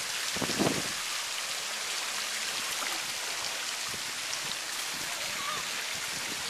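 Steady hiss of running water, with a brief louder burst about half a second in.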